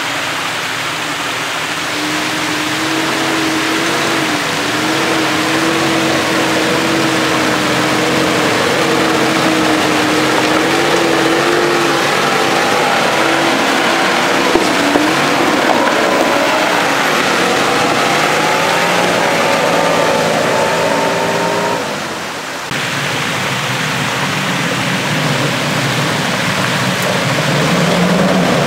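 Off-road SUV engines working under load as a Nissan Patrol and then a Mitsubishi Pajero Sport drive up a shallow rocky stream bed, the engine note wavering and rising, over a steady rush of water and splashing tyres. About 22 seconds in the sound dips briefly and changes.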